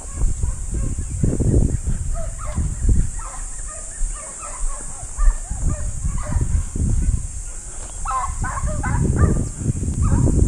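Hunting dogs barking and yelping in many short calls that come thickest near the end. Low rumbling bursts run under them, and a steady high-pitched hiss sits over the top.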